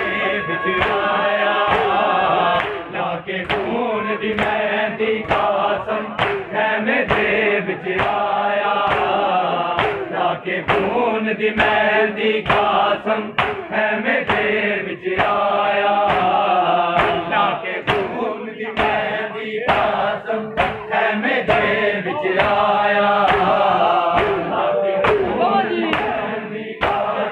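A crowd of men chanting a noha (Shia mourning lament) together, with a steady beat of sharp slaps from hands striking bare chests in matam.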